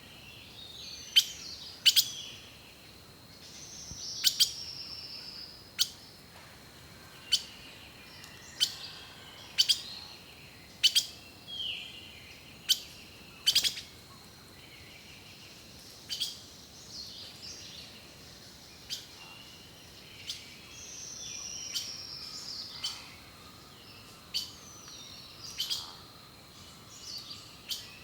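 Songbirds calling and singing: loud, sharp chip notes repeated about every second or so, mixed with falling whistled phrases and short trills.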